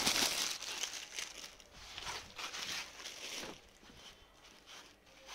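Rustling and crumpling of cloth as a shirt is handled and spread out, loudest at the start and fading over the next few seconds.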